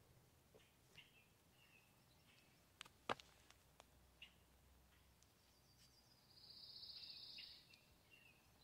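Near silence with faint, short high bird chirps, a single sharp click about three seconds in, and a rapid high trill lasting about a second near the end.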